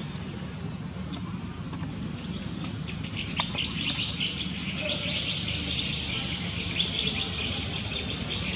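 Birds chirping in many quick, high notes, growing busier from about three seconds in, over a steady low background rumble.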